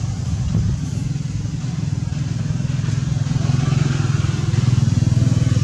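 An engine running steadily, a low pulsing hum that grows somewhat louder about three seconds in.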